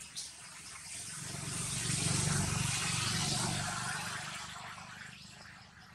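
A motor vehicle passing by: a broad rushing sound with a low engine rumble beneath it, swelling to its loudest about two seconds in and then fading away.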